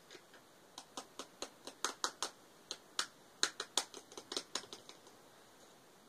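A quick, irregular run of sharp small clicks from the plastic lid of a jar of loose face powder as fingers work it. The clicks stop about five seconds in.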